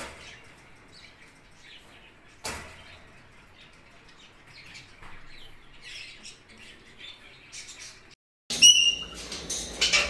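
Faint, scattered bird chirps with a single knock about two and a half seconds in; after a short break near the end, loud, shrill repeated calls of Alexandrine parakeets begin.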